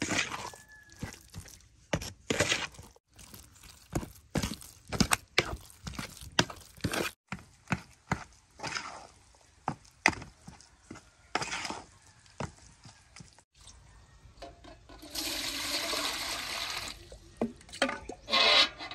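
Wooden spatula slapping and knocking through minced pork in a metal bowl as it is mixed, in irregular sharp knocks. About fifteen seconds in, water is poured into a metal pot for about two seconds, with a second short pour near the end.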